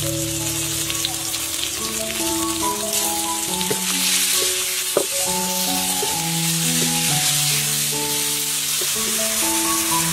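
Sliced pork, garlic and chilies sizzling in hot oil in a wok as they are stir-fried, with a few clicks of the spatula against the wok, over background music of held notes.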